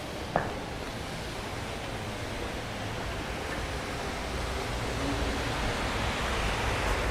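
Steady rushing outdoor noise that grows slowly louder, with a single sharp click about half a second in.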